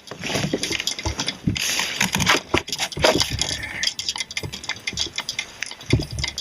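Irregular knocks, clunks and rattles of a plastic fishing kayak and its gear being handled and shifted as the paddler gets ready to stand, with a short stretch of rustling hiss about a second and a half in.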